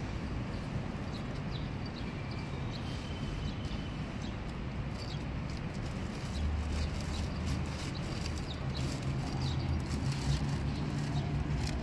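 A dog eating from a bowl, with scattered small clicks of chewing and licking. Under it runs a steady low hum that gets louder about six seconds in.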